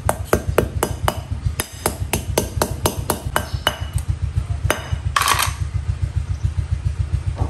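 A small hammer rapidly tapping a piece of wire mesh flat against a rock, about four to five strikes a second for nearly four seconds, then a couple more taps and a short rattle of the mesh.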